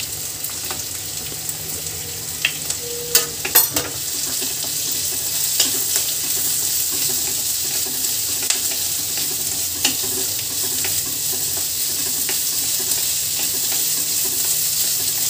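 Chopped capsicum, onion and garlic sizzling in hot mustard oil in an iron kadhai, stirred and tossed with a wooden spatula. A few sharp clicks come about three to four seconds in, and the sizzle grows a little louder after that.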